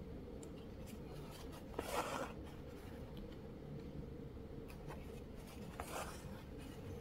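Embroidery needle and stranded thread being drawn through cotton cloth while working an outline stitch: two short rasping pulls, about 2 s and 6 s in, with a few light ticks of the needle between them.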